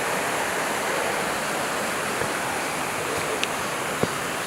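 Steady rush of a mountain stream's water over rocks, an even hiss with no let-up.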